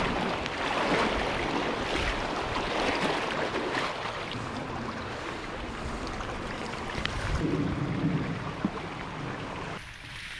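Water sloshing and splashing as a person wades through a shallow, stony creek, with irregular surges. It stops abruptly near the end.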